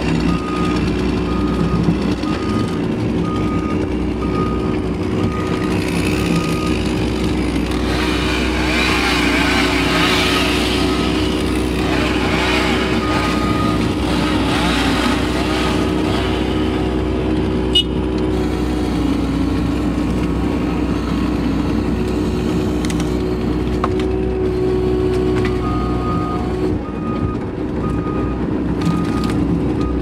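Diesel engine and hydraulics of a Case TV450 compact track loader running steadily, heard from inside the cab. Its backup alarm beeps about twice a second in several stretches as the machine reverses.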